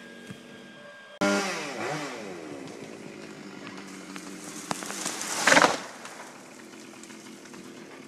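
A chainsaw up in a Douglas fir jumps to full throttle about a second in and cuts, its pitch sliding under load. About four seconds later there is a short, loud crash as the cut-off treetop hits the ground, and the saw runs on at a lower level.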